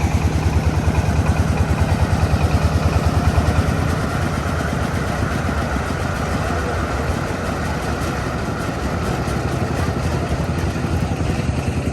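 Engine of a công nông farm vehicle (a single-cylinder diesel) running with a fast, even chug. About four seconds in, the beat evens out and it runs a little quieter.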